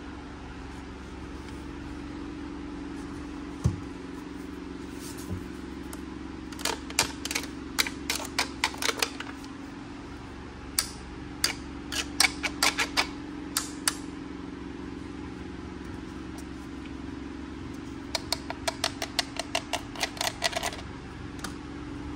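Clicks and taps of gloved hands handling the plastic Polly Pocket Unicorn Piñata playset: three quick runs of light clicks a few seconds apart, after a couple of soft knocks, over a steady low hum.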